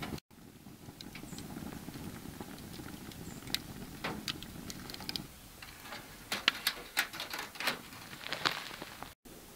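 Wood fire crackling inside a folding titanium backpacking stove during its first burn-in, with scattered sharp pops. A low rush of burning sits under the first half, then drops away about halfway through, and a cluster of louder snaps follows.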